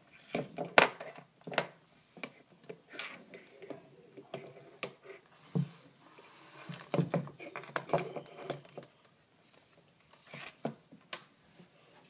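Handling noise: irregular knocks, clicks and light clatter as a wall light switch and parts wired with alligator clips are moved around on a wooden tabletop. The loudest knock comes about a second in.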